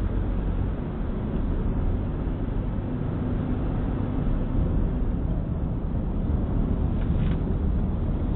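Steady road and engine noise of a moving car, heard inside the cabin, strongest at the low end.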